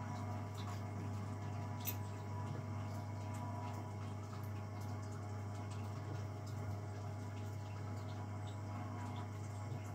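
Small electric home-brewing pump running with a steady, even hum while liquid trickles through its hoses.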